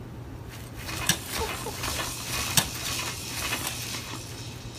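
Light clattering and rustling with scattered clicks, two of them sharper: one about a second in and one past the middle. It fades back to a low hum after about four seconds.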